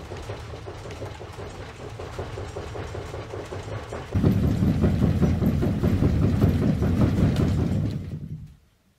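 A low rumble with a fast, even pulsing, which jumps much louder about four seconds in and then fades out just before the end.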